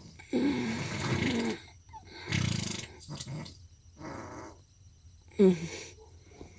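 A person moaning with a wavering pitch, then short, low, pulsing bodily gas sounds. A brief moan falling in pitch about five and a half seconds in is the loudest moment.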